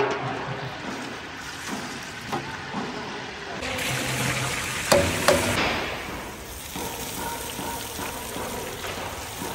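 Ingredients tipped from a steel bowl into a large cauldron of hot liquid, setting off a louder rush of hissing about four seconds in that lasts about two seconds, over a steady background hiss of the cooking pot.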